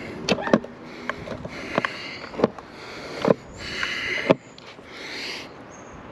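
Skateboard on a concrete sidewalk: a string of sharp clacks, several seconds apart, with short stretches of hissing rolling noise between them.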